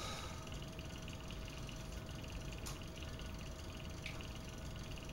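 Quiet room tone with a steady faint hum, and a few faint clicks and small handling noises from drinking out of a glass bottle.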